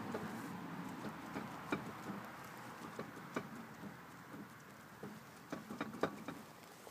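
Rolling noise from a Volkswagen with a failing wheel bearing, fading steadily, with sharp irregular clicks over it that come thicker about five to six seconds in.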